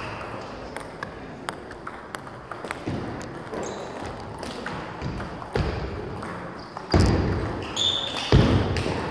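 Table tennis ball clicking off bats and tables, scattered taps from more than one table. Near the end two louder, heavier hits stand out.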